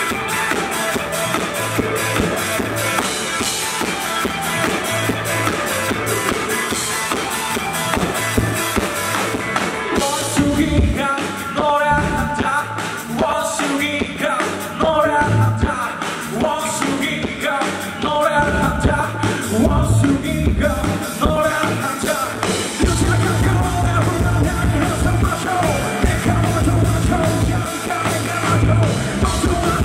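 Rock band playing live: drum kit, electric guitars and bass guitar, with sung vocals, in a poor-quality recording.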